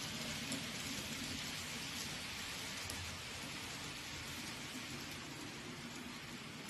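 Model trains running on the layout's track, a steady rolling hiss like rain with a faint low rumble underneath.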